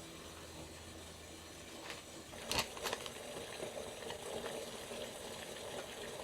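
Kitchen cooking sounds: two sharp clinks about two and a half seconds in, then a steady low hiss like something simmering.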